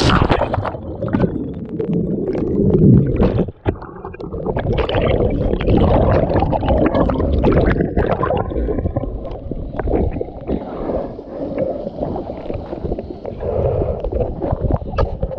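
Pool water splashing and sloshing against a GoPro held at the surface, muffled and gurgling as the camera dips in and out. A heavy splash comes right at the start.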